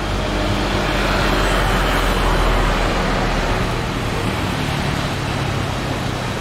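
Airbus A320 jet engines running as the airliner rolls along the runway: a steady jet roar with a deep rumble underneath, swelling to its loudest two to three seconds in and then easing slightly.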